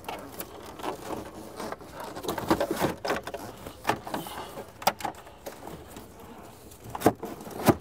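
Plastic glove box knocking, clicking and rubbing against the dashboard trim of a Volvo XC90 as it is pushed and lined up into its opening. The knocks are scattered and uneven, with two sharper ones near the end.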